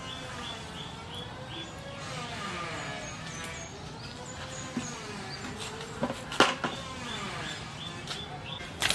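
Birds chirping in short repeated notes, over a smoothly wavering melodic sound that carries on underneath. A few sharp knocks come about six seconds in and again near the end.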